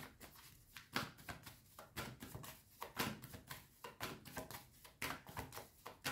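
Tarot cards being handled and shuffled: a run of faint, irregular card flicks and taps, a few each second.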